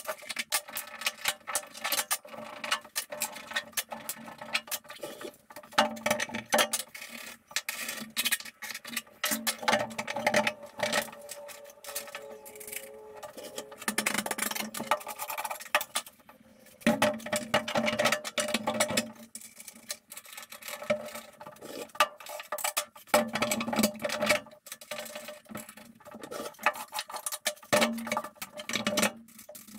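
Rapid clicking of a ratchet spanner on bolts, broken up by knocks and scrapes of wooden boards being set in place and bolted on.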